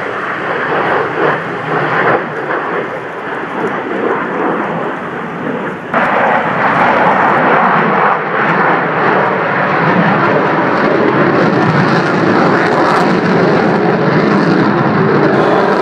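Aircraft engine noise from a plane flying past, a loud even rush that jumps abruptly louder about six seconds in.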